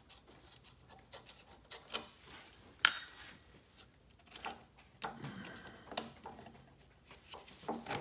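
Hands handling a small engine's plastic air-filter housing against the engine: scattered light clicks and knocks with rubbing, one sharp click about three seconds in.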